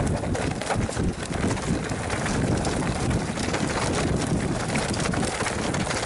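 Wind buffeting the camera microphone over the rumble and rattle of a mountain bike riding a rough dirt trail, with many small clicks and knocks throughout.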